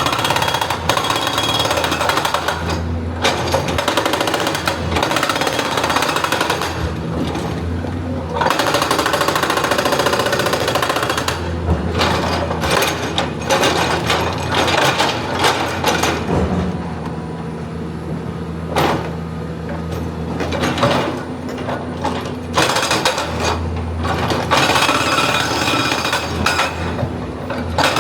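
Excavator working rock: rapid, repeated hammering with a few short pauses, over the steady drone of its diesel engine.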